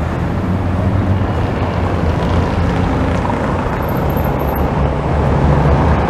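Road traffic on a busy city avenue: a steady, even rumble of passing cars.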